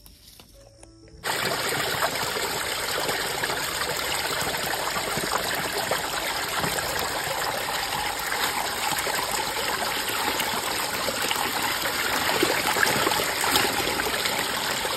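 Water pouring in a steady stream into a metal basin already full of water, with leafy greens being washed in it. It starts suddenly about a second in and keeps up evenly.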